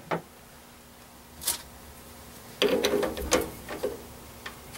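Metal clicks and clinks of a three-jaw lathe chuck being set up by hand, a washer spacer and the chuck key knocking against the steel jaws. A single click about a second and a half in, then a quick cluster of clinks and a ratchety rattle from about two and a half to four seconds in.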